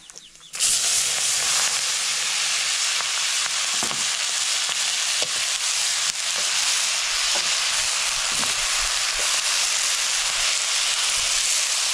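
Shredded cabbage hitting hot oil and spices in a wok about half a second in, setting off a sudden loud sizzle that holds steady while a ladle stirs it.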